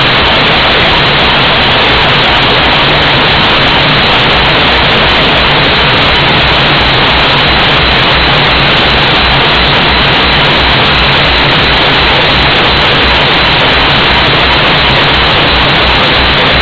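A ship's air compressor running loudly and steadily, with a fast, even throb underneath.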